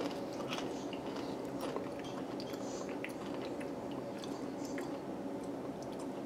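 A person chewing a mouthful of thick Doritos Jacked tortilla chips, quietly, with many small crunches.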